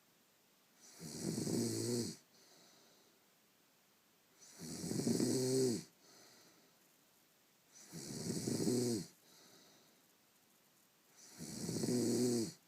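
Snoring in deep sleep: four loud snores at an even pace, each about a second long, with quiet breathing out between them.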